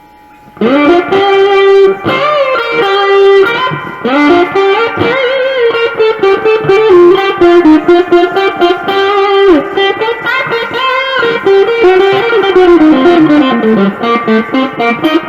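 Electric guitar with distortion playing a lead line with string bends, starting loudly about half a second in.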